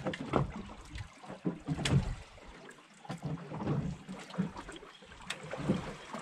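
Wind buffeting the microphone and sea water slapping and lapping against the hull of a small drifting fishing boat, in uneven surges with a few stronger gusts about half a second and two seconds in.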